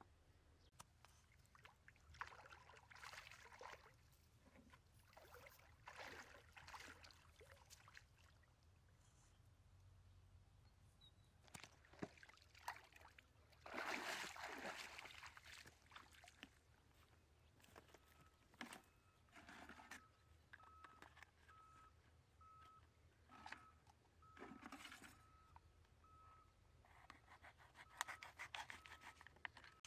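Quiet sloshing and splashing of water as a person wades through a shallow pond, loudest about halfway through. A faint pulsing tone repeats through the second half, and near the end comes the scraping of a knife cutting a plastic basket.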